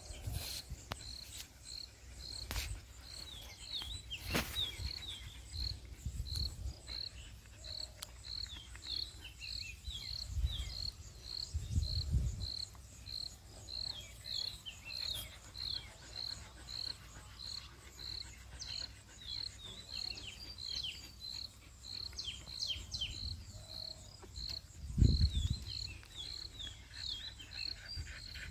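An insect chirping in a steady rhythm: a short, high note about every 0.6 s, with thin falling chirps among them. Low bumps come midway and near the end, the one near the end the loudest sound.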